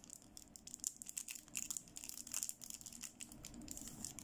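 Thin clear plastic packaging sleeve crinkling and crackling as a toy makeup brush is worked out of it. The crackles come thick and irregular for about three seconds, then thin out.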